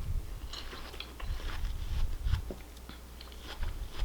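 Close-miked chewing of fast food: a run of short wet mouth clicks and light crunches with soft low thumps.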